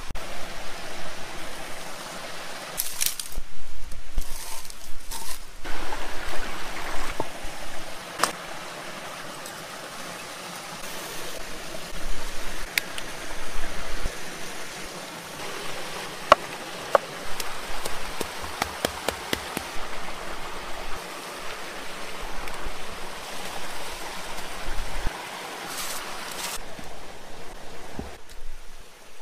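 Stream and small waterfall rushing steadily, with scattered short clicks and a few brief louder rustles from hands working food on a wooden board.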